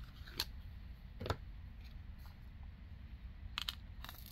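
A few sparse light clicks of plastic on plastic as resin diamond painting drills are tipped into and shifted in a small plastic drill tray, over a low steady hum.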